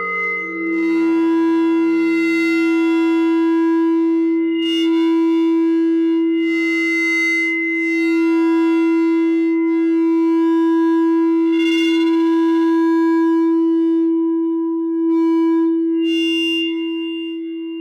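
No-input mixer feedback drone: one loud steady tone, with fainter higher whistling tones over it and a flickering low buzz underneath. Bursts of harsh hiss flare up and die away several times.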